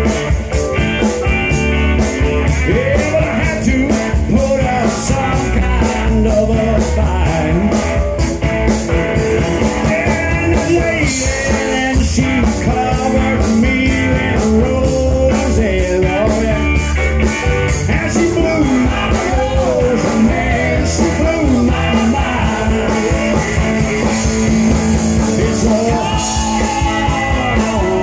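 Live rock band playing: electric guitar, bass guitar and a drum kit keeping a steady beat, with a man singing lead into a microphone.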